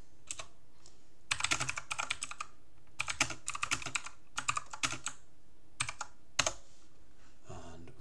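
Typing on a computer keyboard: four quick runs of key clicks with short pauses between them.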